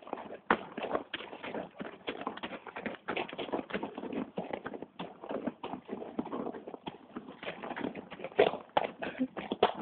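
A horse's hooves on a gravel track: an uneven run of hoofbeats, several a second, as it is ridden along.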